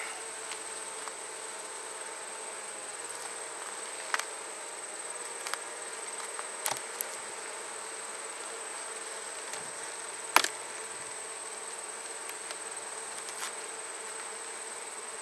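Honey bees humming steadily around an opened hive. A few sharp clicks cut through, the loudest about ten seconds in.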